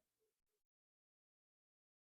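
Silence: the sound cuts out entirely, with only a faint trace of room sound in the first half-second.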